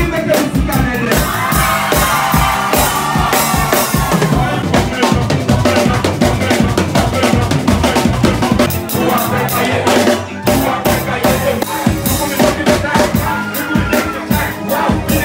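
Loud live music with a steady drum-kit beat and bass, voices mixed in; it briefly drops out about ten seconds in.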